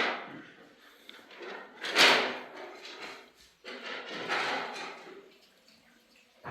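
Household handling noise: three scraping swells about two seconds apart, each rising and fading, the one about two seconds in loudest.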